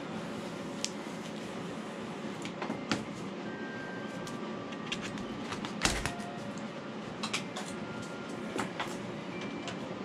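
Scattered light clicks and knocks of foam and tools being handled over a steady background hum, with one louder thump about six seconds in.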